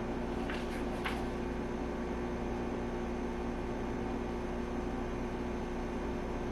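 Steady mechanical hum with a faint hiss, with two light clicks about half a second and a second in.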